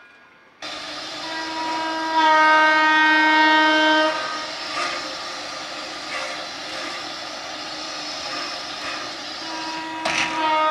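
Whistle of the Frisco 1630 steam locomotive blowing: it cuts in just under a second in, is loudest for about two seconds, holds on more quietly, then a second loud blast starts near the end.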